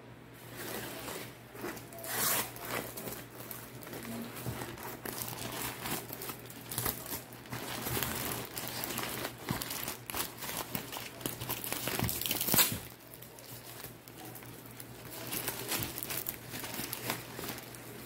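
Printed gift bag crinkling and rustling in the hands as it is opened, with tearing at the taped edge; the loudest burst comes about twelve seconds in.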